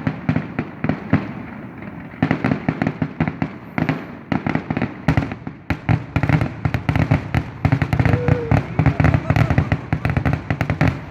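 Fireworks finale going off: a dense, rapid barrage of bangs and crackles that briefly thins about a second in, then builds again and tails off near the end.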